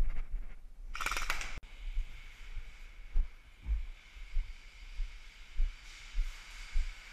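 Footsteps on a concrete floor, heard as dull thumps about two a second through a body-worn camera. About a second in there is a short hiss that ends in a sharp click.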